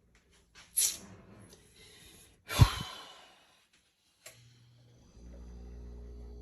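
A sharp click, then a heavy thump, then a smaller click, as of something being handled. About five seconds in, a steady low electrical hum starts and holds.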